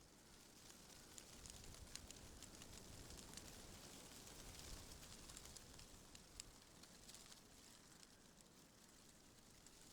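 Faint rustling of tree leaves stirring in the wind, full of small crisp ticks; it swells in the middle and eases toward the end.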